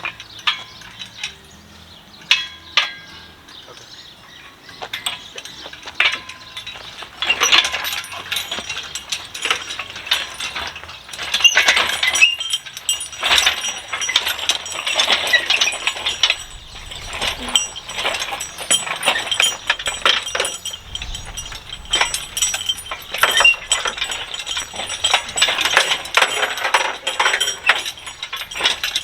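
Rapid, irregular metallic clinking and clanking of hand tools and metal parts being worked and handled, sparse at first and then nearly continuous from about seven seconds in.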